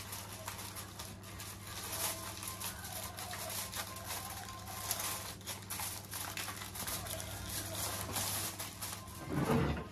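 Aluminium foil crinkling and crackling as hands press and tuck it down around a covered baking tray, over a steady low hum. Near the end there is a louder, lower handling sound.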